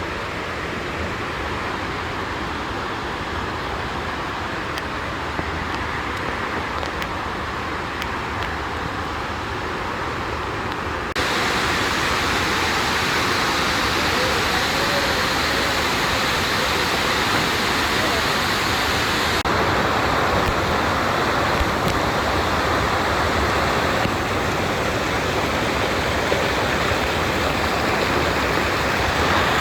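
Steady rush of waterfalls, a dense even noise with abrupt jumps in level about 11 and 19 seconds in.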